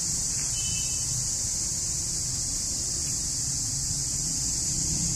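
Motorcycle running steadily while being ridden, a low engine rumble under a constant high hiss.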